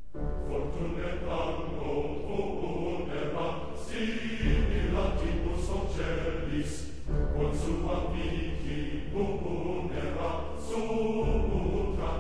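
Background music: a choir-like chant over a steady beat and a low bass line.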